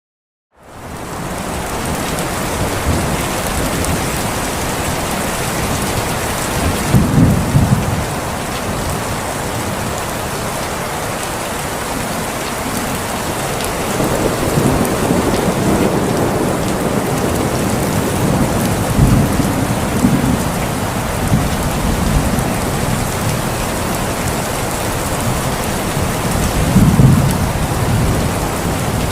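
Steady rain falling, fading in at the start, with low rumbles of thunder swelling up about three or four times.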